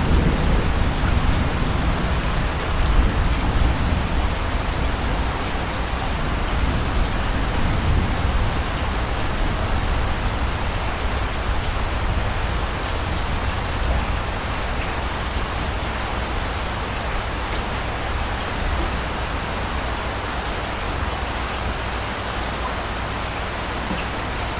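Steady rain falling, with a low rumble of distant thunder dying away over the first few seconds.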